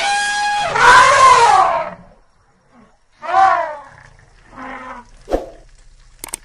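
Animal call sound effects: a long, loud call in the first two seconds, a shorter call about three seconds in, and a fainter one near five seconds, followed by a sharp click.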